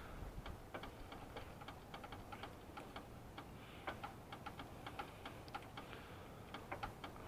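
Faint, irregular light clicks, a few a second, from a car jack being worked to lift the right front wheel off the ground.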